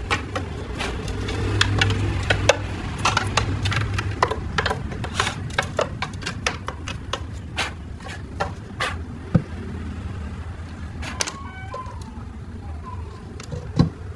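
Irregular series of sharp clicks and light knocks over a steady low hum.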